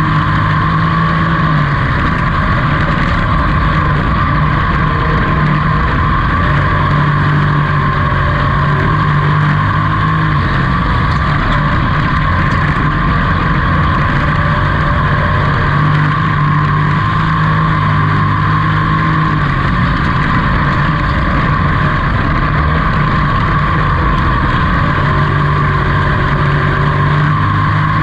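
Pro truck's race engine running hard under racing load, heard from inside the cab: a loud, continuous engine sound whose pitch dips and climbs back every several seconds as the throttle comes off and goes back on.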